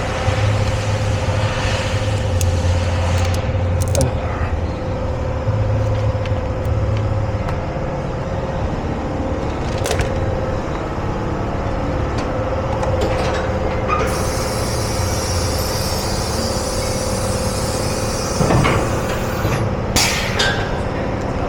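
A vehicle engine running steadily, with a few knocks and clunks over it and a stretch of hiss near the end.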